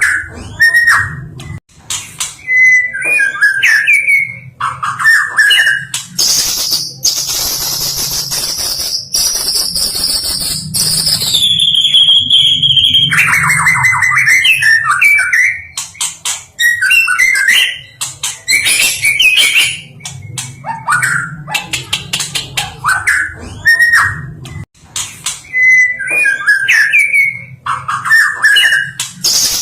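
White-rumped shama singing a varied song: short whistled phrases and sharp clicks, with one long high trill that drops in pitch partway through before the whistled phrases resume.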